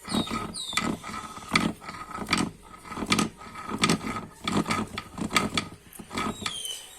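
Crankshaft of an Italika DM200's single-cylinder engine turned by hand in the opened crankcase, scraping and clicking with each turn, about one stroke every 0.8 s. The rasp comes from a damaged crankshaft bearing.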